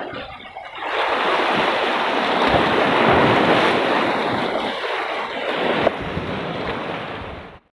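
Sea waves washing against shoreline rocks, a steady rushing with wind on the microphone, and one short knock about six seconds in. The sound cuts off suddenly near the end.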